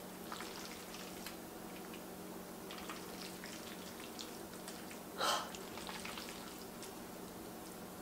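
Metal fork and wooden spoon tossing and lifting sauced spaghetti in an enamelled cast-iron pot: soft wet squelches and light clicks, with one brief louder noise about five seconds in. A faint steady hum underneath.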